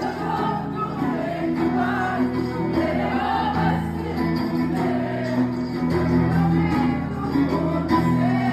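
A live band performance with a guitar and singing, amplified through a PA. A sung melody runs over steady chords.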